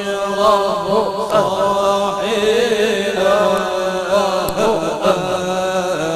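A man's voice chanting an Islamic devotional song (nasyid) into a microphone, in long, wavering, ornamented phrases over a steady low drone.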